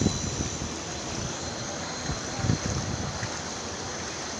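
Floodwater rushing across a road in a steady, even rush, with wind buffeting the microphone and a few soft low thumps.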